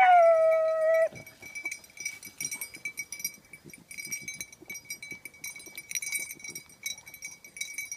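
A beagle gives one long, drawn-out bay of about a second, dipping slightly in pitch as it begins and then holding steady. It is a hound giving voice while running a track.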